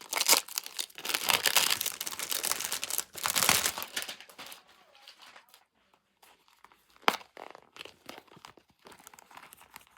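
Packaging crinkling and tearing as photocards are taken out of an album by hand, loudest in the first few seconds, then lighter handling with one sharp click about seven seconds in.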